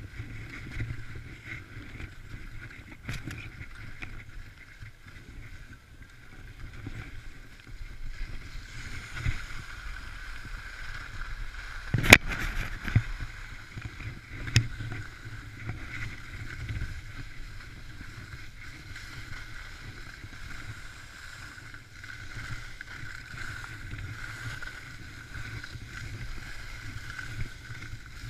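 Skis sliding over packed snow with wind rushing over the microphone during a downhill run, broken by a few sharp knocks, the loudest about twelve seconds in.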